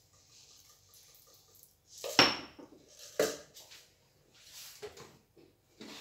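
Kitchenware being handled: two sharp clinks about a second apart, the first the loudest with a brief ringing, then a few lighter knocks.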